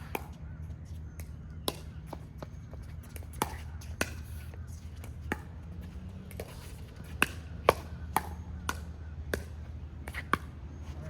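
Sharp pops of pickleball paddles hitting the plastic ball during a rally, irregular at first, then a quicker exchange of about two hits a second in the second half, over a steady low hum.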